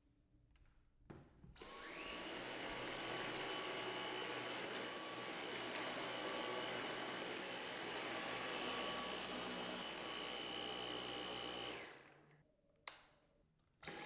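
Cordless stick vacuum cleaner, a Dyson Cyclone V10, switched on: its motor spins up with a rising whine about a second and a half in, runs steadily for about ten seconds with a high whine over the suction noise, then winds down. A sharp click follows, and the vacuum starts again at the very end.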